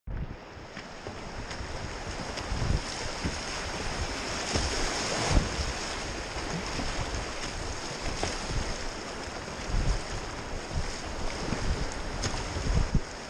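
Rushing whitewater of a river rapid close around a kayak, a steady hiss of broken water, with scattered low thumps of water and wind against the boat.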